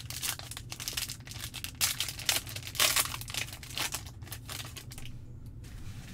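Plastic wrapper of a Panini Mosaic basketball hanger pack being torn open and crinkled by hand, a dense crackle that is loudest about two to three seconds in and then eases off.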